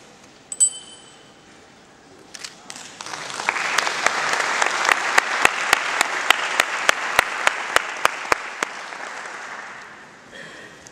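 A single sharp, ringing clink about half a second in. Audience applause then swells from about two and a half seconds, with one nearby pair of hands clapping steadily about three times a second, and dies away near the end.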